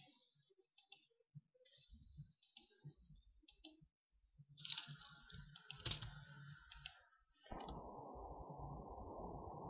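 Faint, scattered computer mouse clicks and a few keyboard keystrokes. About three-quarters of the way in, a steady low hum sets in.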